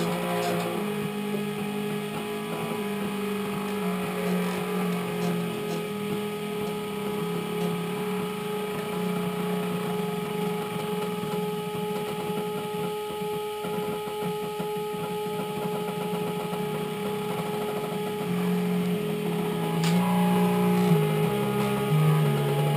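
Stepper motors of a homemade 4-axis CNC hot-wire foam cutter running a cut, a steady whine with lower tones that jump to new pitches every second or two as the axes change speed.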